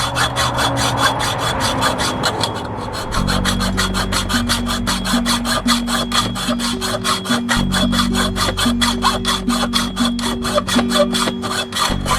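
Hacksaw cutting through a metal chain-link gate pole in quick, even back-and-forth strokes, several a second. Background music comes in about three seconds in.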